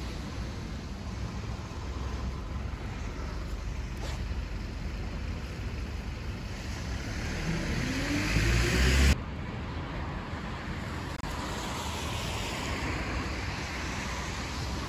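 Road traffic on a wet street: a car approaches and passes close by, its engine note rising and the noise swelling until it cuts off suddenly about nine seconds in. After that comes steady traffic noise, with a softer swell of another passing vehicle.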